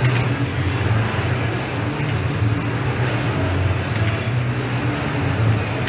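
Air rowing machine's fan flywheel whirring under hard rowing, its low drone swelling and easing with the strokes.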